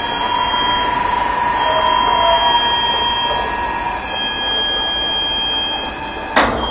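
Automatic ultrasonic cleaning line running: a steady, loud hiss with thin high whines over it, one of which fades about four seconds in. A single sharp click comes near the end.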